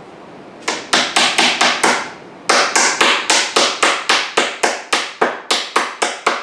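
Claw hammer tapping a brass table alignment pin into the edge of a walnut tabletop: a quick run of about six light taps, a short pause, then a steady run of about four taps a second.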